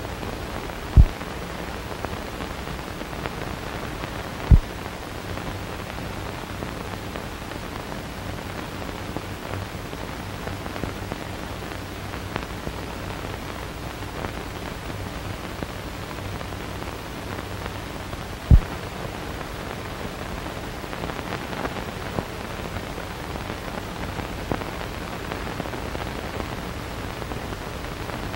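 Steady hiss and crackle of an old film soundtrack, with three brief low thumps: one about a second in, another a few seconds later, and a third past the middle.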